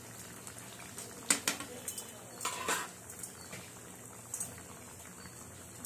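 Bread pakoras deep-frying in hot oil in a frying pan, a steady sizzle. A utensil clicks and scrapes against the pan several times in the first few seconds as the pakoras are turned.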